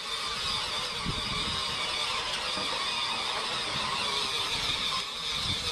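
Battery-powered toy ride-on quad bike's electric motor and gearbox whirring steadily as it drives across the dirt, with uneven low rumbles of wind on the microphone.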